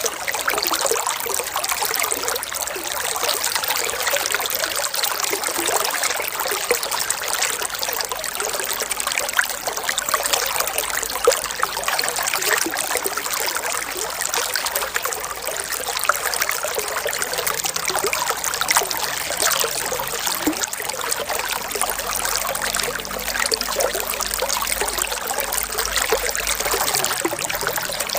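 Running water trickling steadily, with a continuous fine bubbling hiss.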